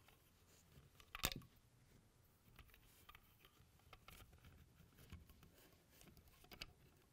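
Faint clicks and light handling of the hard plastic parts of a 1983 G.I. Joe Cobra F.A.N.G. toy helicopter, with one sharper plastic click about a second in and another near the end.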